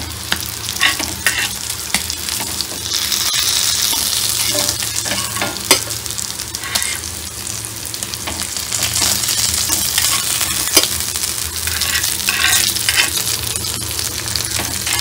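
Fish shallow-frying in oil on a cast-iron tawa, sizzling steadily and louder for a couple of seconds a few seconds in. A metal spatula scrapes and clicks against the pan now and then as the fried fish are lifted off.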